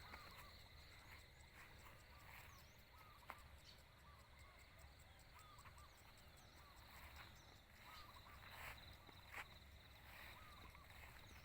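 Faint rural outdoor ambience: scattered short bird chirps over a steady high insect drone.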